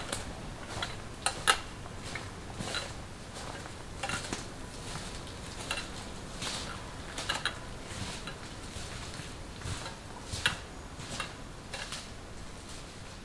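Footsteps crunching irregularly on dry leaf litter and twigs on a forest floor.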